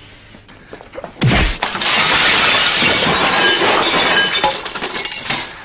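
A heavy thud about a second in, then a long crash of shattering glass, with shards tinkling and clattering as they fall and thinning out near the end.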